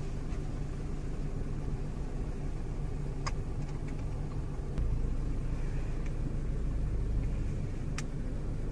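Toyota Fortuner's turbo-diesel engine idling, a steady low rumble that gets louder about five seconds in, with two sharp clicks, one in the middle and one near the end.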